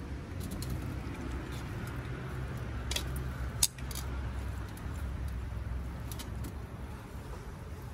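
Battered giant river prawns frying in hot oil in a pan: a light sizzle with scattered sharp pops and crackles, the loudest pop about three and a half seconds in. A steady low rumble runs underneath.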